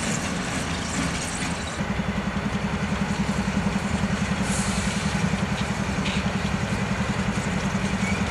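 Norfolk Southern diesel locomotive engines running as the units roll slowly past close by. From about two seconds in there is a steady, rhythmic chugging at about six beats a second.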